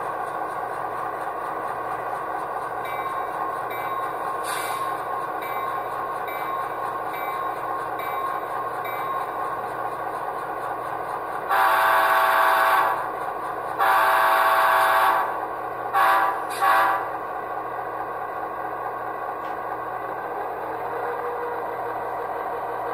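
Soundtraxx Tsunami 2 EMD sound decoder in an HO-scale Athearn Genesis MP15AC model locomotive, playing through small cube speakers: a steady simulated diesel engine drone, with two long horn blasts and then two short ones about halfway through.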